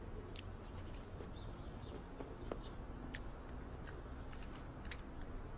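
A capuchin monkey eating a dried biscuit: a few faint, sharp crunching clicks a second or two apart, with some faint short high chirps, over a low steady room hum.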